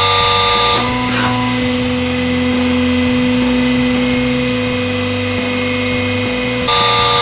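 Hydraulic press pump running with a steady multi-tone hum while the ram lifts off the flattened steel ball. The note changes about a second in, when the ram starts to move, and again near the end. A brief hiss comes about a second in.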